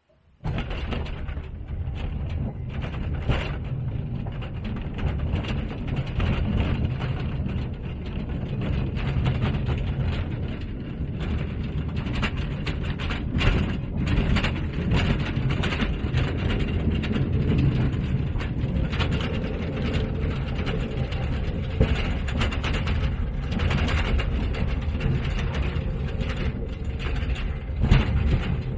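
Small mine trolley train running on narrow-gauge track: a dense rattling and clattering of wheel knocks over a steady low rumble. It starts abruptly about half a second in.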